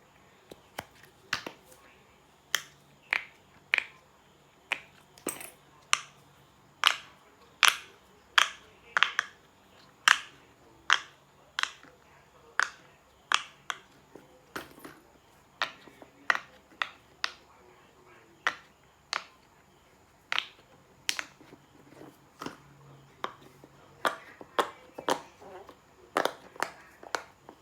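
Silicone pop-it fidget toy bubbles being pressed one after another, giving sharp separate pops about one to two a second at an uneven pace, a few softer than the rest.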